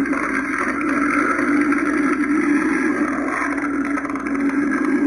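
Spirit Halloween Regan animatronic making a steady, raspy rumbling sound between its spoken lines.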